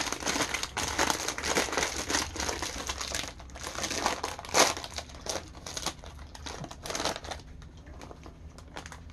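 Crinkly snack bag of popcorn crackling and rustling as it is handled and pulled open, with one sharper, louder crackle about halfway through. The rustling dies down over the last couple of seconds.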